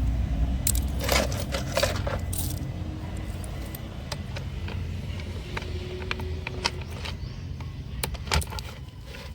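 Clicks and rattles of a car vacuum cleaner's plastic parts being handled, a cluster of them early and a sharp one near the end, over a low steady rumble.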